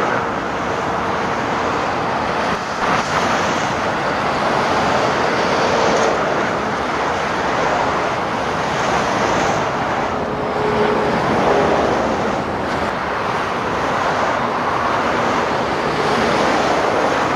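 Steady roar of busy motorway traffic: the tyres and engines of trucks, vans and cars going past at speed blend into one continuous noise, with no single vehicle standing out.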